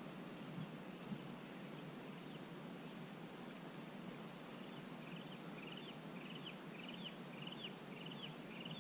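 Quiet outdoor creek-side ambience: a steady high insect buzz, joined about halfway through by a short chirp repeated about twice a second.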